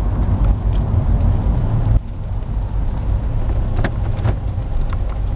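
Low, steady rumble of a car, dropping a little about two seconds in, with a few faint clicks near the end.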